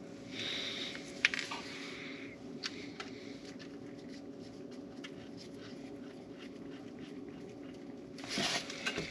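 Small metallic clicks and scrapes of a gloved hand working on exhaust manifold hardware, over a steady background hum. One sharp click about a second in, and a short burst of rustling and scraping near the end.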